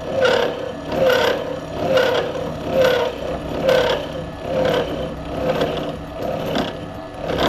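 Milling cutter on a Bridgeport mill cutting a gear tooth into a blank held on a dividing head. The cut gives an even, rhythmic scrape about once a second over the steady hum of the mill.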